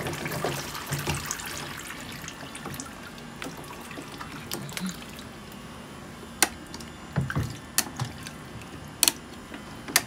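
Water trickling and splashing down a plastic toddler water table's tower of cups and spouts into its basin. Several sharp plastic knocks come in the second half as toy cups are handled against the table.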